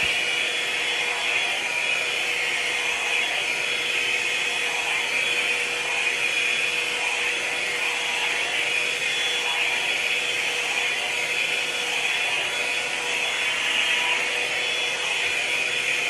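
Handheld hair dryer blowing wet hair dry, running steadily: a constant rush of air with a steady whine from its motor.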